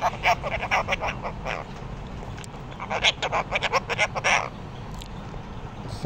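Red-breasted parakeet giving rapid, harsh squawking chatter in two bursts, one at the start and another about three seconds in, while being handled and stroked.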